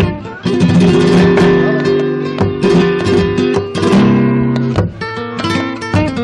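Flamenco acoustic guitar playing on its own, plucked runs and strummed chords, in an interlude between sung verses; it drops briefly just after the start, then carries on.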